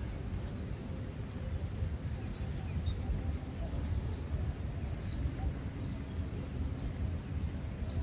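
Red-whiskered bulbul nestlings begging at the nest with thin, high chirps, about a dozen short rising cheeps starting about two seconds in, over a steady low rumble of background noise.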